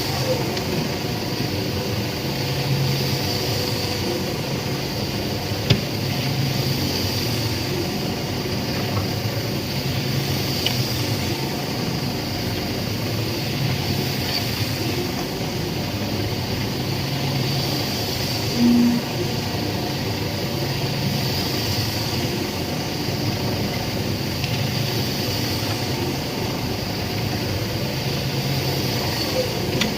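Concrete mixer machine running steadily, with a low hum that swells and fades every few seconds. A single knock comes about six seconds in, and a short, louder low tone sounds near twenty seconds.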